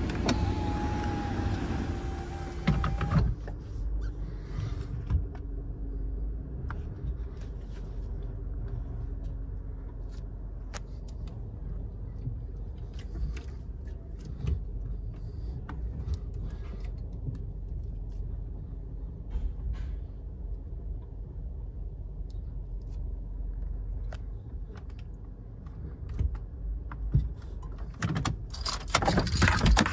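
Low, steady rumble of a car creeping and idling, heard from inside the cabin, with scattered light clicks and a thin whine in the first few seconds. About two seconds before the end, a loud rushing noise starts.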